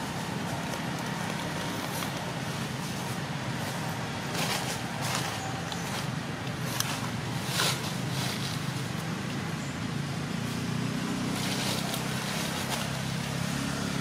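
Steady low hum of a motor vehicle engine running, growing a little stronger in the last few seconds, with a few brief crackles between about four and eight seconds in.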